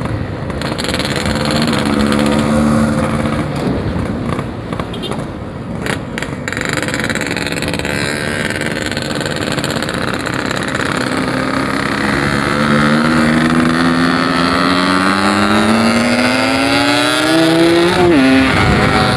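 Yamaha RX-King's 135cc two-stroke single-cylinder engine under way. It holds steady, then revs up in one long climb in pitch over several seconds and drops sharply near the end, as at a gear change, before it climbs again. The rider says the carburettor's low-end setting is not right yet and the engine stumbles at 4,000 to 6,000 rpm.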